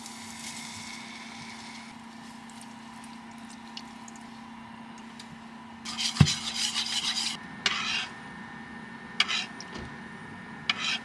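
Chopsticks and a spoon stirring and basting a rockfish in soy-based simmering sauce in a nonstick frying pan, giving short scraping and rubbing noises. The loudest is a knock and a scrape about six seconds in that lasts about a second, followed by brief scrapes every second or so. A steady hum runs underneath.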